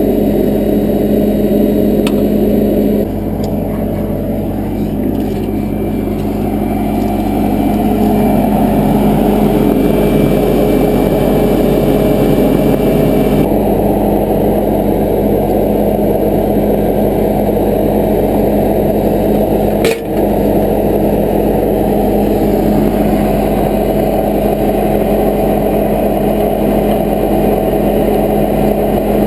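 Bobcat skid steer engine running steadily while the machine works, its tone shifting about 3 seconds in and again about 13 seconds in, with a brief dip and click about 20 seconds in.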